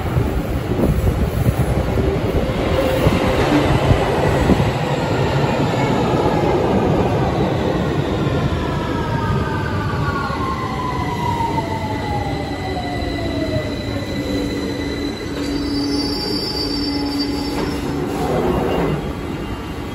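London Underground Victoria line 2009 Stock train running into the platform and braking to a stop: a loud rumble of wheels on rail, a traction-motor whine falling steadily in pitch as it slows, and high wheel and brake squeal through the second half.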